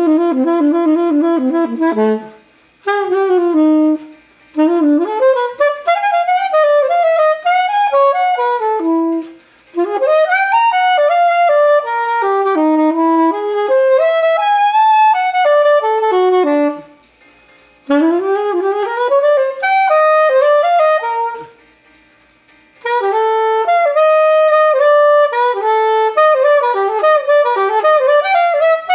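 Soprano saxophone played solo: a melody of flowing phrases, broken by short pauses for breath every few seconds.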